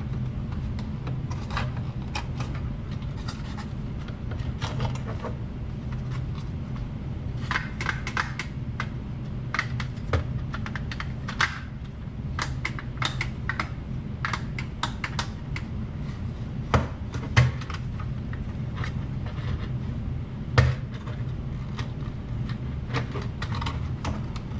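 Hard plastic clicking, scraping and occasional snaps as a scale model's plastic interior is pushed and worked into its body shell, its tabs catching at the doors. A steady low hum runs underneath.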